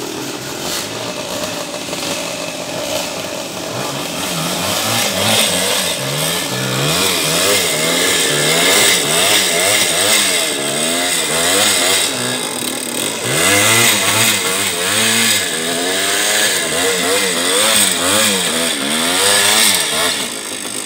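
Yamaha dirt bike engine revving up and down over and over as the rider works the bike up a steep dirt slope. The revs rise and fall roughly once a second and get louder after the first few seconds.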